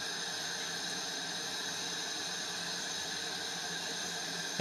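Propane-oxygen glassworking torch burning with a steady hiss.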